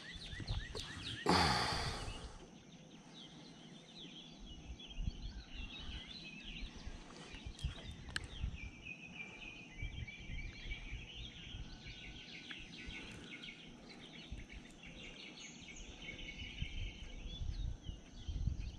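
Chorus of small birds singing and chirping in the early morning, faint and continuous, with a short burst of noise about a second and a half in.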